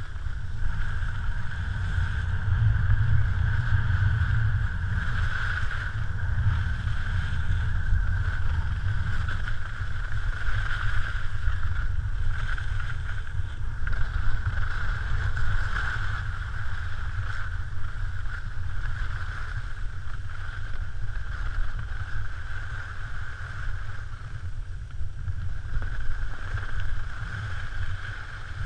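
Wind rumbling on the microphone during a ski descent, with a steady hiss of skis running over snow that swells and eases from time to time.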